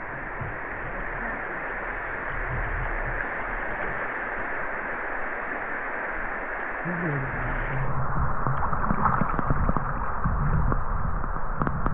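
River water rushing and gurgling in a steady noise that grows a little louder after about eight seconds.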